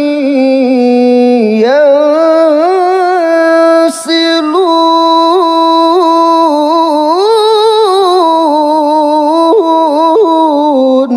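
A male qari's voice in melodic Quran recitation (tilawah): one long melismatic phrase held on the vowel, with ornamented turns and vibrato around a steady low note, broken briefly about four seconds in.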